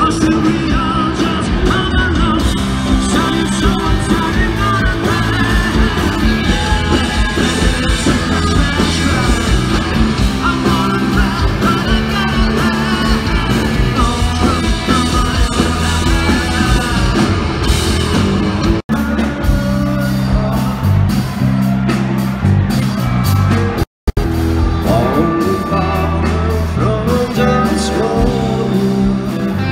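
Live rock band playing loudly: electric guitar, bass and drums with a singer, some of it shouted. The sound cuts out for a split second about 24 seconds in.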